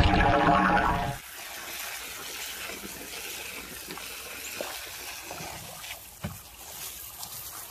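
Background music cuts off about a second in, then water runs steadily out of the outlet of a fabric-wrapped PVC French drain pipe, the drain discharging the water it has collected.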